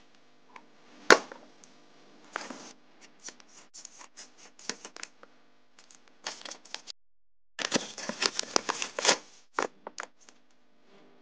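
A small handmade paper blind bag being handled and opened: paper crinkling and rustling in irregular bursts, the longest a little past the middle, with one sharp click about a second in.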